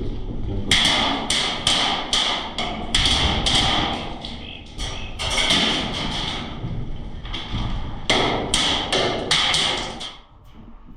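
Airsoft rifle firing quick strings of shots, several a second, in three bursts of fire, stopping near the end.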